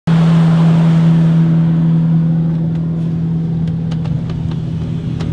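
Houseboat engine running steadily under way, a constant low drone heard from inside the cabin. A hiss at the start fades over the first second or so, and a few faint clicks come later.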